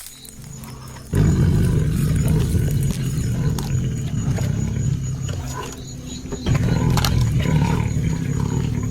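Recorded jaguar roar played through a small portable speaker, starting suddenly about a second in, low and rough, with a short break around six seconds before it resumes.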